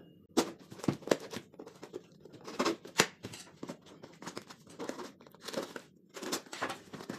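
A knife slitting the packing tape on a cardboard box, with the flaps being pulled open and tape torn: a series of irregular scrapes, rips and clicks.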